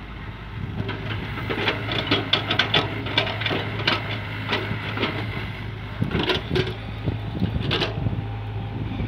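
Hyundai 85A excavator's diesel engine running steadily, with a string of knocks and crunches as the bucket works through wet clay, from about a second and a half in to four seconds and again from about six to eight seconds.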